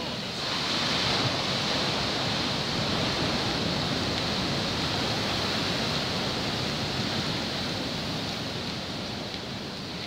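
Heavy surf: large storm waves breaking on rocks and a seawall, a continuous rush of churning water that swells about a second in and eases slowly toward the end.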